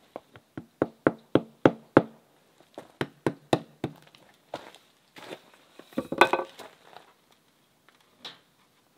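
Hammer knocking on the wooden formwork around a freshly poured concrete slab: a run of quick, sharp taps, about three a second, then a louder clattering knock about six seconds in and one last knock near the end.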